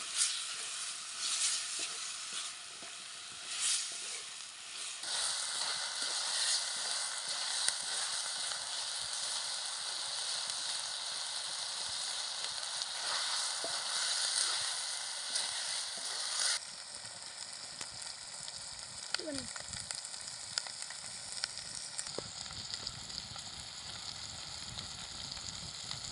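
Chicken pieces sizzling as they fry in a clay pot over a wood fire, stirred with a bamboo stick. About two-thirds of the way through the sizzle drops suddenly and turns quieter.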